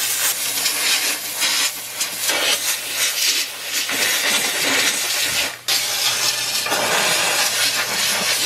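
Bissell Steam Shot handheld steam cleaner spraying a loud jet of steam, a hiss that rises and falls with a brief break about five and a half seconds in.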